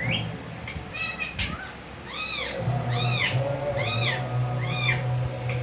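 Pet parrot giving a run of four meow-like calls, each rising and falling in pitch, about one a second, after a few shorter squawks and a rising whistle. A steady low hum starts about halfway.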